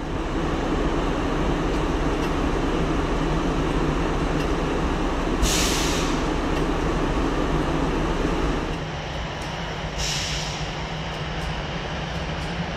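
A Melbourne tram running on street track, a steady rumble and clatter that eases about nine seconds in. Two short, sharp hisses break through, one about five and a half seconds in and one about ten seconds in.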